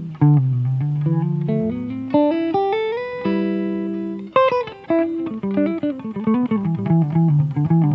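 Solo acoustic guitar improvising softly: single picked notes climbing step by step, a sharply struck chord about halfway, then quicker picked notes.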